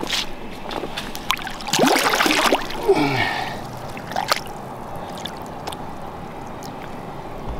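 Flathead catfish splashing in shallow river water while held by hand to be revived for release, with a loud burst of splashing about two seconds in and quieter sloshing and drips around it.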